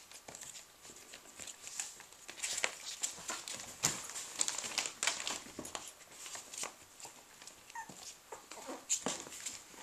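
Newspaper rustling and crinkling irregularly under three-week-old Labradoodle puppies moving about on it, with a few brief high puppy squeaks near the end.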